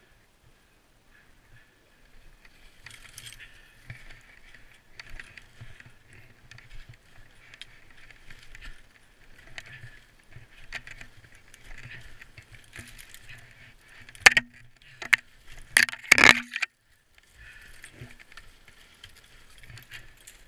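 Skis swishing through deep powder snow, rising and falling with the turns. About two-thirds of the way in comes a quick cluster of four sharp, loud knocks, the last the loudest.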